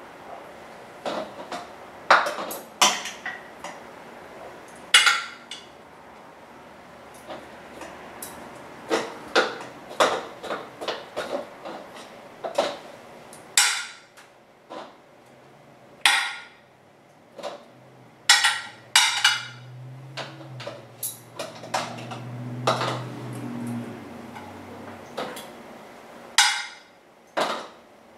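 Metal tongs clinking and tapping against a glass baking dish and glass canning jars as chunks of cooked beef are lifted out and dropped into the jars: a string of sharp clinks, some with a short glassy ring. A low hum comes in for a few seconds in the second half.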